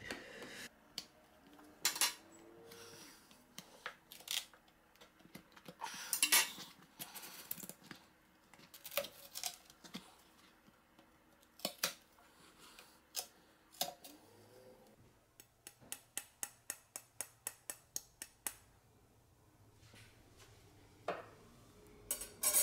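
A metal butter knife and a plastic credit card scraping and clicking against the woofer's aluminum trim ring as it is pried loose from its double-sided tape, with scattered metallic clinks. Later comes a quick run of small clicks, about five a second, for some three seconds.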